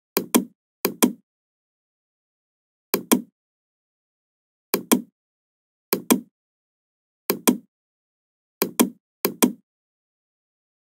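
Computer mouse clicking about eight times, each click a quick pair of ticks from button press and release, with silence between.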